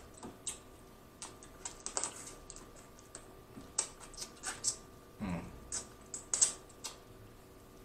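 Close-miked eating sounds: small crackles of boiled crawfish shell being peeled, then wet smacking and sucking as seasoning is sucked off the fingers, in scattered irregular clicks.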